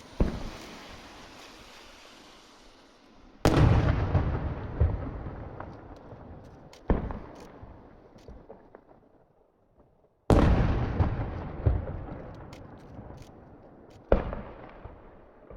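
Aerial firework shells bursting, up to No. 4 size. There are five booms, two of them much louder than the rest, and each trails off in a long rumbling echo. Scattered short crackling pops fall between the booms.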